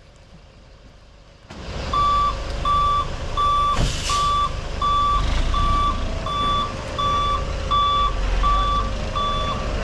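Concrete mixer truck reversing, its back-up alarm beeping steadily about once every 0.7 seconds over a low diesel engine rumble. It starts after about a second and a half, with a brief hiss about four seconds in.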